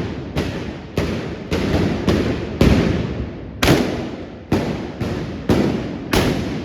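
Trabucaires' blunderbusses (trabucs) firing black-powder blank shots in a ragged volley: about eleven loud bangs at uneven spacing, often less than half a second apart, each trailing off in a long echo.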